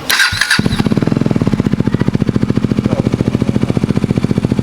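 KTM Duke 250 single-cylinder engine started up, catching about half a second in and settling into a steady, evenly pulsing idle through a cheap aftermarket Akrapovic-copy exhaust.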